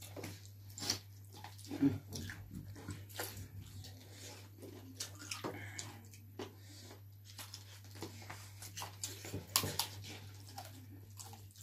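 People chewing and smacking their lips while eating chicken with their hands: irregular wet mouth clicks and smacks.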